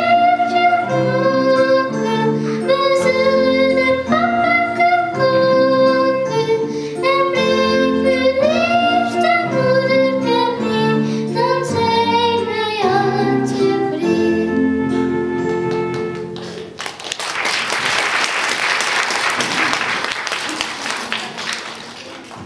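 A girl sings into a microphone, accompanied by a small live band with acoustic guitar and keyboard. The song ends about three-quarters of the way through, and the audience applauds, fading toward the end.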